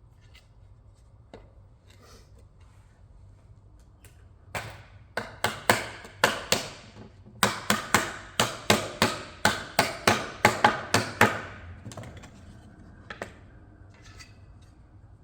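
Rubber mallet knocking phenolic plywood shelf panels down onto their tenons: about twenty quick knocks in two runs, starting a few seconds in, at roughly three to four a second.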